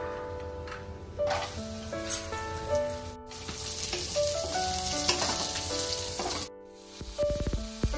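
Cashews and raisins sizzling as they fry in ghee in a steel wok. The sizzle is loudest from about three seconds in and cuts off suddenly near the end, followed by a few dull knocks. A simple melody plays over it throughout.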